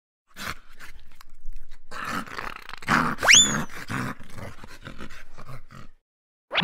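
Dog growling and barking sounds for a toy bulldog, coming in rough bursts, with a quick rising whistle-like swoop about three seconds in.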